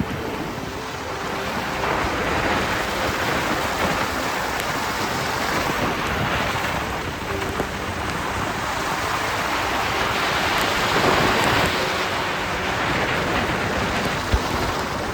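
Steady rain-like hiss that swells and eases slowly over several seconds, with one sharp tick near the end.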